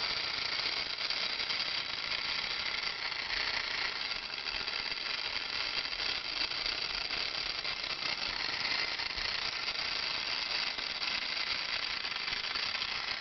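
Clockwork spring motor of a vintage Yonezawa tin wind-up walking clown running, a steady whirr of small gears with the rattle of the tin toy as it walks.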